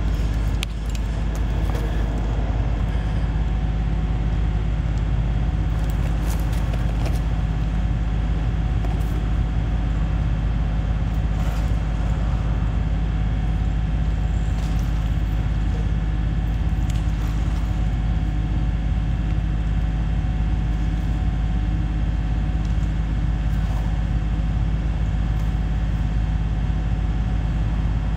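Steady low rumble of road traffic crossing the highway bridge overhead, droning evenly throughout.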